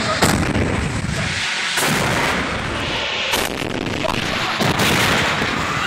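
Liquefied-gas tanker exploding: a sudden loud blast followed by a rumbling roar, with further blasts about two, three and a half and five seconds in, overloading a phone's microphone.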